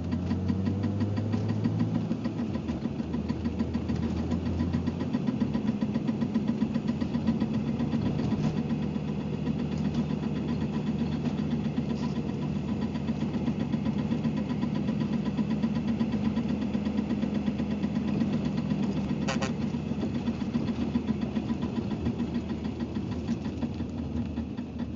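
BMW 325ix inline-six engine idling with a rapid, steady clicking throughout. The low engine note shifts and settles in the first few seconds, and there is one brief high chirp about three-quarters of the way through.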